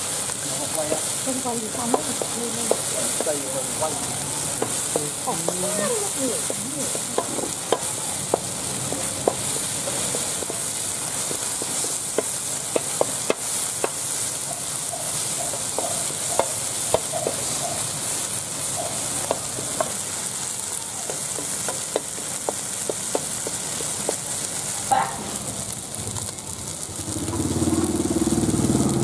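Land snails in their shells sizzling as they are stir-fried in a wok, with a wooden spatula scraping the pan and shells clicking against the metal. Near the end a low engine drone comes up and grows louder.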